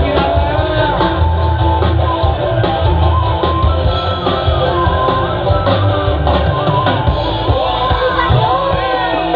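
Loud music with a heavy, pulsing bass and a singing voice, played through a parade sound system.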